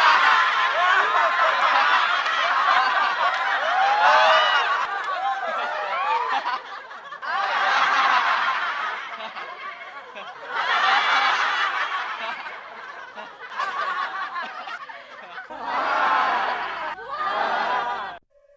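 Studio audience laughter sound effects: many voices laughing together, first in one long burst of about six seconds, then in five shorter separate bursts of one to two seconds each.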